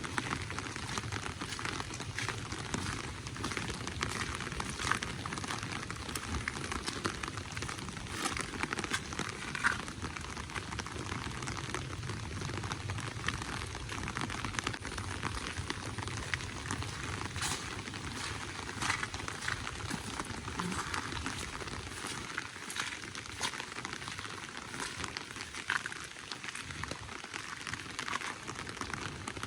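Steady rain falling, a continuous hiss with many small drop impacts.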